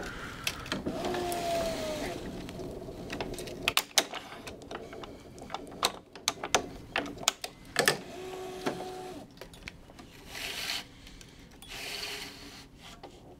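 Tennis racquet string being woven by hand through the main strings and drawn through: a run of light clicks and taps as the string strikes the strings and frame, short rubbing hisses as lengths of string slide through, and a couple of brief squeaky tones.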